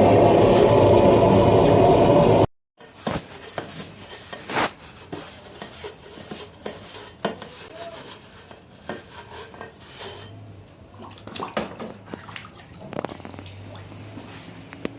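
Loud steady rushing noise that cuts off abruptly about two and a half seconds in, followed by scattered light clinks and taps of metal pieces being handled.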